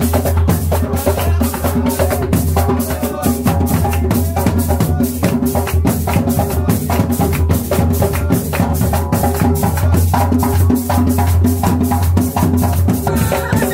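Afro-Colombian drum dance music: hand drums and a shaker on a fast, even beat, with voices singing over it.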